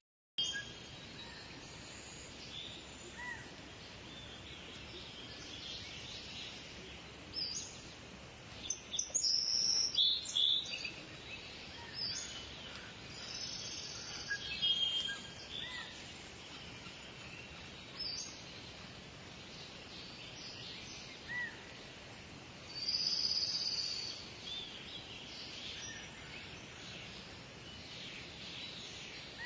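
Several birds chirping and trilling over a steady hiss of background noise, with a brief dropout to silence at the very start.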